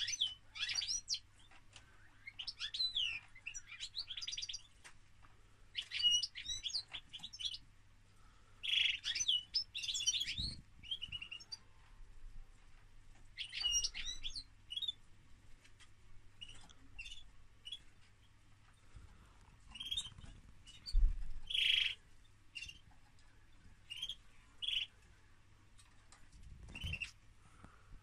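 Caged European goldfinch singing: bursts of rapid, high twittering phrases, giving way to shorter separate calls in the second half.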